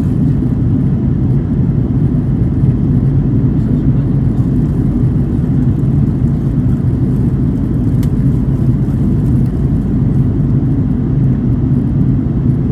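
Steady low rumble inside the cabin of an Airbus A330-300 in flight: its Rolls-Royce Trent 700 jet engines and the airflow over the fuselage.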